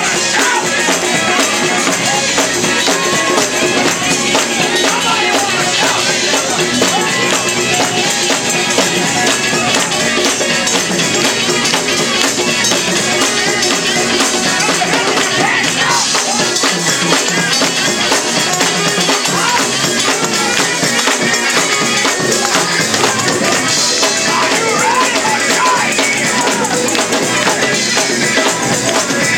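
Live gospel church band playing an upbeat song, with a tambourine jingling steadily over the music.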